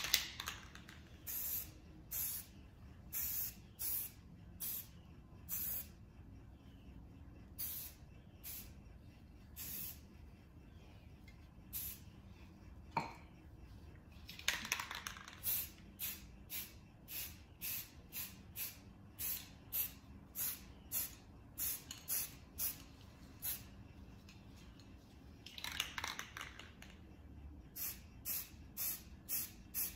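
Aerosol spray paint cans hissing in dozens of short spurts, at times about two a second, as a camouflage pattern is sprayed freehand, with two longer, fuller hisses about halfway and near the end.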